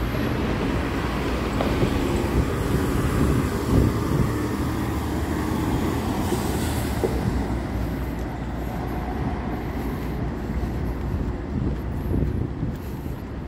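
City street traffic: a heavy vehicle running with a steady low rumble, and a brief hiss about six and a half seconds in.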